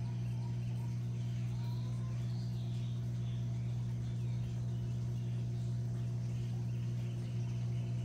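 Scattered faint bird chirps over a loud, steady low hum that does not change.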